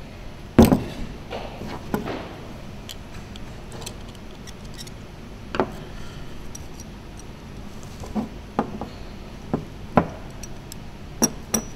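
Steel parts of a jack plane (blade, cap iron, lever cap) being handled and set down on a wooden bench: scattered clicks and clinks of metal on metal and on wood, the loudest about half a second in and a quick cluster near the end.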